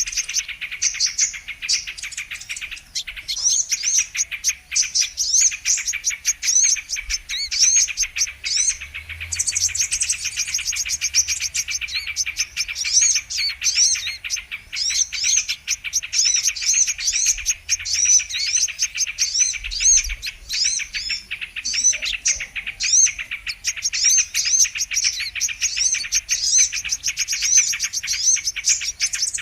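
Brown-throated sunbird (kolibri kelapa) calling: a dense, unbroken run of rapid high chirps and twittering notes.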